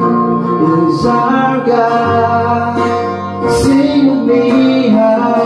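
A man singing into a microphone while playing an acoustic guitar.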